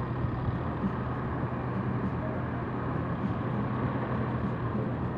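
Steady city traffic noise with a constant low hum and no distinct events.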